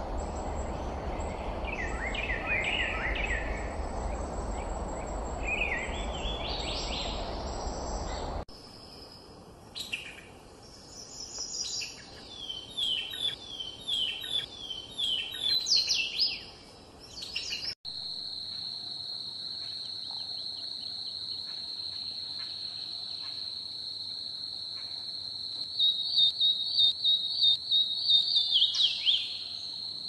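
Songbirds singing in three spliced recordings. First, repeated short song phrases over a steady low rumble. After a sudden cut, a busier run of quick chirping phrases. After another cut, a steady high insect buzz with a loud burst of bird song near the end.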